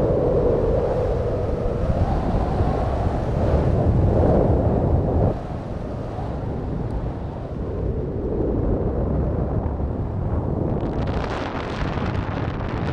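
Wind rushing over a helmet-mounted camera's microphone during flight under a BASE parachute canopy. It is louder for about the first five seconds, then drops to a lower steady rush, turning gusty near the end.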